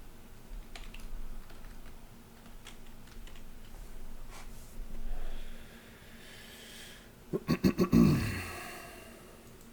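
Typing on a computer keyboard with scattered key clicks. About seven seconds in comes a quick run of five loud knocks, then a heavier thump.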